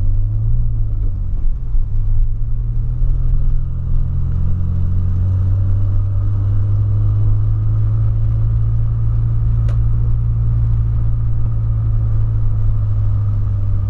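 In-cabin sound of a 2008 Volkswagen Polo 1.6 sedan on the move: a steady low engine and road drone with tyre noise from the wet road. The engine pitch shifts briefly near the start, then holds steady.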